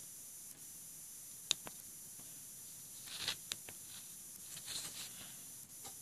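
Handling noise from a Samsung Galaxy Golden flip phone being operated by hand: a few sharp clicks in pairs as its keys are pressed, with soft rubbing of fingers on the phone, over a steady faint hiss.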